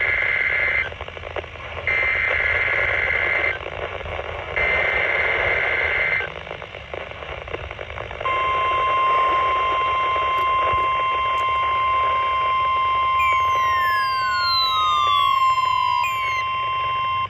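Emergency alert radio broadcast over steady static hiss. It opens with three warbling digital header bursts, each under two seconds and a second apart. From about halfway a steady, loud warning alarm tone holds, and near the end a second tone slides down in pitch over a few seconds.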